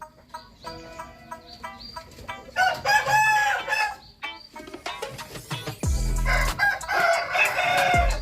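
Roosters crowing, one call about three seconds in and another near the end, with some clucking. A low rumble starts about six seconds in.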